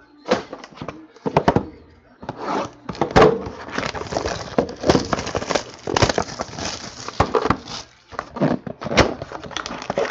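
Hands handling trading-card boxes and wrappers: a busy run of crinkling, rustling and light clicks and knocks, with a brief lull a couple of seconds before the end.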